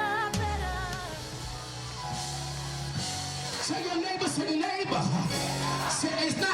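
Music with singing: a held sung note with vibrato ends just as it begins, then the band carries on with a bass line, and wavering voices come back in over the second half.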